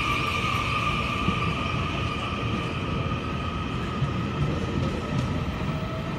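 Taiwan Railways Puyuma Express, a TEMU2000 tilting electric multiple unit, pulling out and running past, with a steady high whine of two tones over the rumble of its wheels on the rails.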